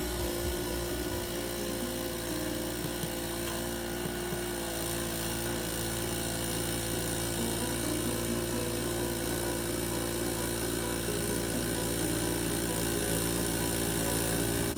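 A motor running steadily, a constant hum of several fixed tones under a hiss.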